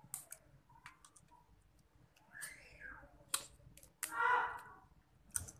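Cooked crab shell being cracked and picked apart by hand while eating, with scattered sharp cracks and clicks. A louder, longer sound comes about four seconds in.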